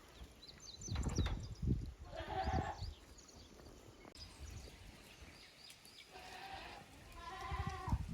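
Goat bleating three times, each a wavering, trembling call, the last two close together near the end. Low bursts of wind rumble on the microphone about a second in.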